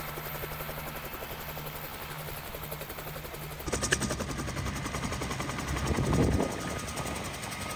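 Bell 47 helicopter running with its rotor beating steadily as it lifts off into a low hover. The sound jumps louder about four seconds in and swells briefly near six seconds.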